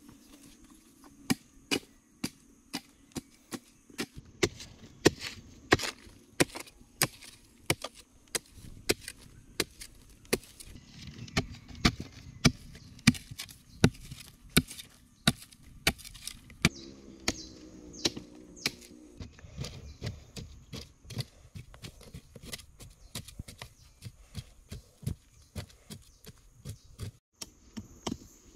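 A hand hoe chopping and scraping into packed earth: a quick, steady run of sharp strikes, two or three a second, starting about a second in.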